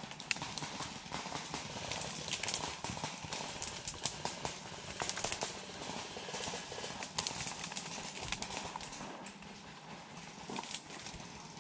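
Footsteps crunching through dry leaf litter and twigs, with leafy undergrowth brushing and rustling, in an uneven run of short crackles.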